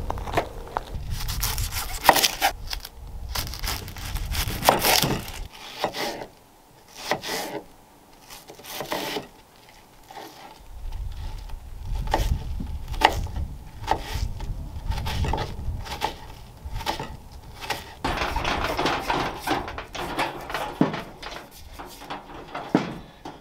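A run of knocks, clicks and rubbing from camp-kitchen prep, with a knife chopping onion and potatoes on a plastic cutting board about halfway through.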